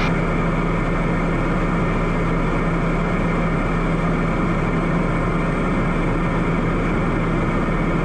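Piper Meridian M500's Pratt & Whitney PT6A turboprop and propeller running steadily in flight: a constant low hum over an even rush of airflow.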